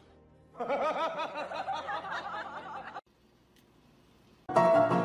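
A voice giving a quick run of wavering, rising-and-falling giggle-like sounds for about two and a half seconds, breaking off suddenly. Music with piano starts near the end.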